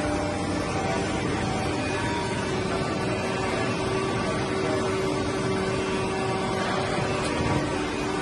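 Plastic injection moulding machine running: a steady hum from its hydraulic pump motor, with a few steady tones over a broad hiss.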